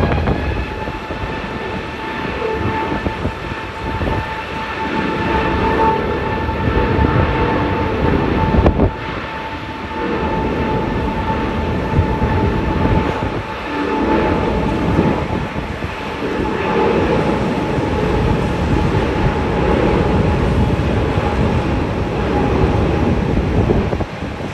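Strong wind buffeting the microphone in gusts, with heavy rain, over the steady high whine of a jet aircraft engine.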